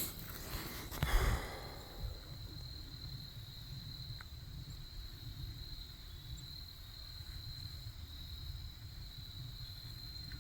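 Quiet outdoor ambience: low wind rumble on the microphone under a faint, steady high-pitched tone, with a soft thump about a second in.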